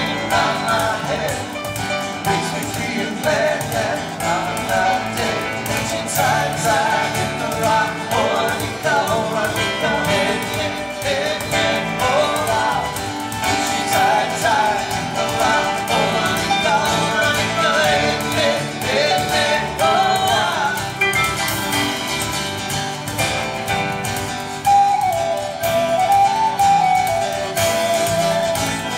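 Live band playing: acoustic guitar, keyboards, drum kit and upright bass under a wavering lead melody, with a flute line carrying the melody near the end.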